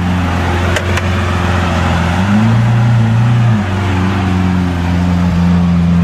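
Lamborghini Aventador's V12 engine idling at walking pace, with a short rise in revs held for about a second midway before settling back to idle. A sharp click sounds about a second in.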